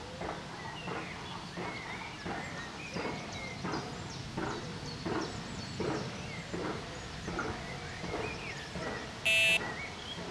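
Birds calling at the waterside, a short call repeated about every 0.7 s with chirps above it. Near the end, a carp rod's electronic bite alarm gives one loud beep, the signal of a fish taking the bait.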